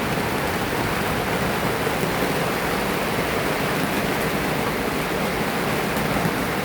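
Loud tropical rain pouring steadily onto a sailboat's cockpit.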